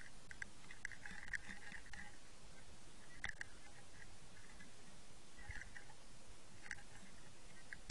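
Underwater recording: a steady hiss with scattered small clicks and crackles, a quick cluster of them about a second in and single ticks later on.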